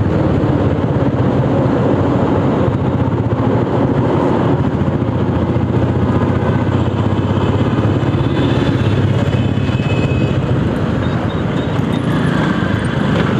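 Royal Enfield motorcycle's engine running steadily on the move, heard from the rider's seat, with road and wind noise over it.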